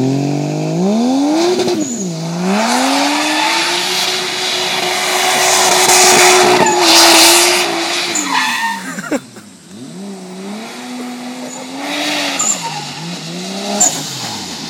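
A car engine revving hard and falling off again and again as the car slides sideways on wet asphalt, with tyre skid noise. The revs are held high for several seconds, drop sharply a little past the middle, then climb and fall twice more.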